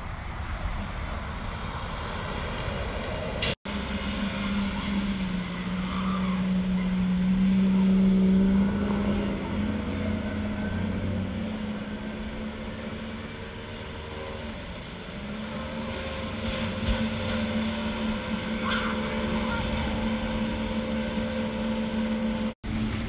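A vehicle engine running steadily, its low hum swelling louder about a third of the way in, then easing off and building again. The sound drops out abruptly twice.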